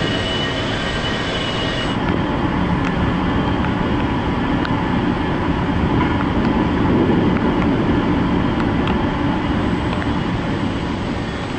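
Steady, loud mechanical rumble with a hiss over it. The higher hiss drops away suddenly about two seconds in, and the rumble swells a little around the middle, with a few faint ticks.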